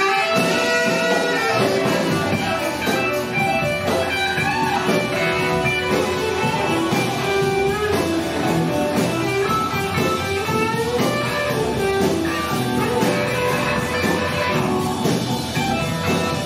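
Live band music with electric guitar out front, backed by the rest of the band through the club's PA.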